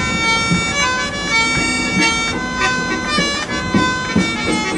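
A hand-pumped harmonium playing a melody: reedy held notes that move from one to the next every fraction of a second, with some notes sounding together.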